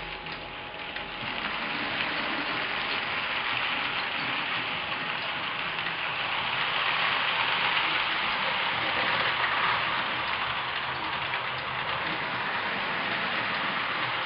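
Hornby live-steam Mallard model locomotive hissing steam as it runs: an even, steady hiss that grows louder about a second in and then holds.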